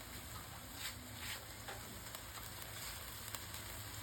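Faint, steady sizzling of a spicy eel stir-fry cooking in a pan, with a couple of brief clicks about a second in.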